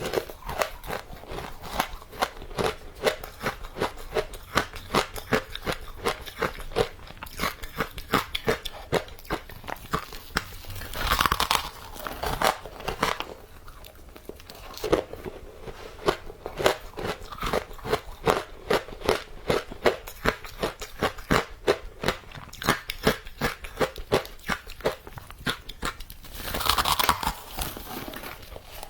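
Close-miked chewing of matcha-powdered ice: a fast, continuous run of crisp crunches, with two longer, louder crunching bursts, one about eleven seconds in and one near the end.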